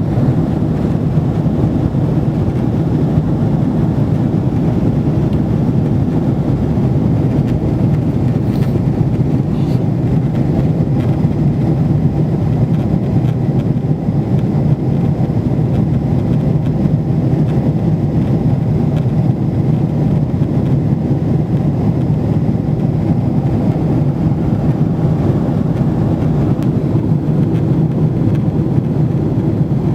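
Aircraft cabin noise in flight: a loud, steady low drone of engines and airflow that holds unchanged throughout.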